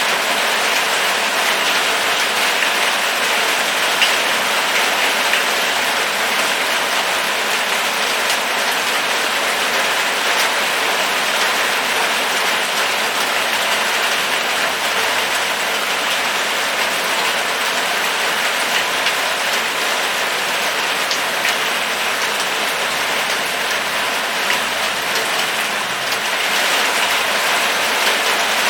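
Steady rain falling and pattering on surfaces, with scattered individual drop ticks.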